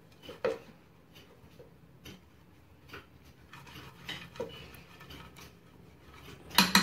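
Silicone pastry brush dabbing and scraping oil around the inside of a metal pot, making scattered light ticks against the metal. A louder clatter of metal near the end.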